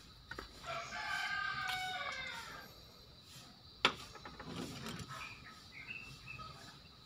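A rooster crowing once, a single call of about two seconds that falls away at the end. About four seconds in comes one sharp click as a small plastic glue cap is set down on a plastic bucket lid, followed by faint short chirps.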